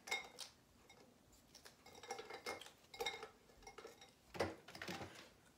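Scattered light clicks and clinks of small hard objects being handled, about a dozen, some with a brief ring, at a low level.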